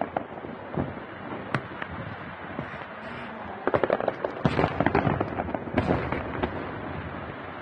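Aerial fireworks shells bursting: a scatter of sharp cracks and pops, building to a dense run of bangs about four seconds in, then thinning out.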